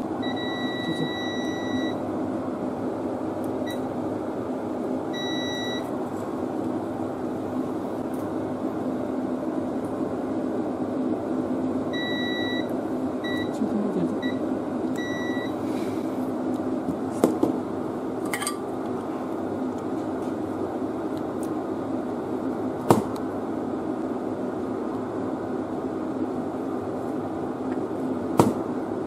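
Digital multimeter in continuity (buzzer) mode beeping a steady high tone each time the probe makes contact between a chip pin and a solder joint: a long beep at the start, shorter beeps a few seconds in, and a cluster of short beeps near the middle. Under it a steady hum, with a few sharp clicks in the second half.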